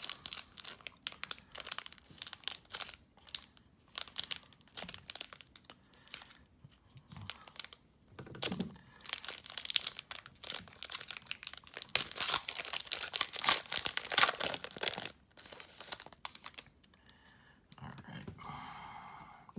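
Shiny foil wrapper of a trading-card pack being torn open and crinkled by hand: irregular crackling and tearing, loudest a little past the middle, then thinning out as the cards come free.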